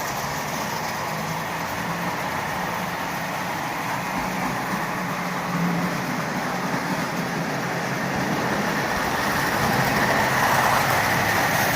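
Marx Commodore Vanderbilt toy locomotive running on its track: a steady whirr of motor and wheels with a low hum, getting a little louder near the end.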